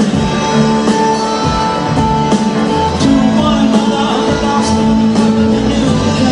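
Live rock band playing an instrumental passage, led by guitar.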